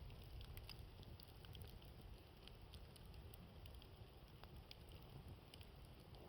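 Wood campfire crackling faintly, with scattered small pops and snaps over a low rumble of wind on the microphone.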